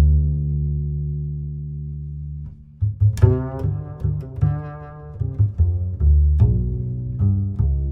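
Background music on low string instruments: a long held low note that fades, then, about three seconds in, a run of shorter plucked and bowed notes.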